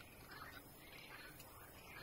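Faint jungle ambience with soft animal chirps repeating about two or three times a second.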